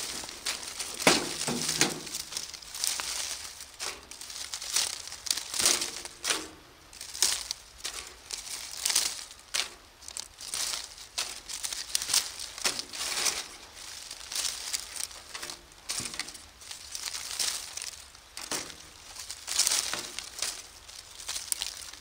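Dry fallen leaves rustling and crunching in irregular handfuls as they are piled by hand into a steel fire pit as tinder.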